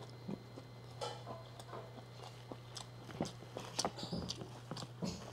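Faint eating sounds: a mouthful of sautéed bamboo shoots and rice being chewed, with soft wet mouth clicks that come thicker about three to four seconds in, as fingers gather more rice from the plate.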